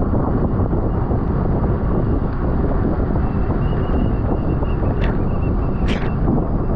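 Wind rushing hard over a bicycle-mounted camera's microphone at racing speed, a steady low rumble. Two short sharp clicks about five and six seconds in.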